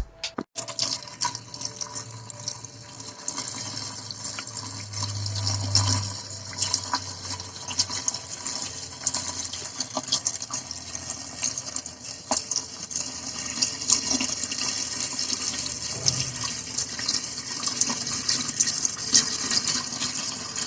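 Water running steadily and splashing into a small pond or tank, with many small crackling splashes throughout.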